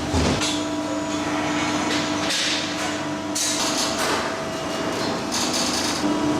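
Metalworking machinery running with a steady hum, broken by three short hissing bursts.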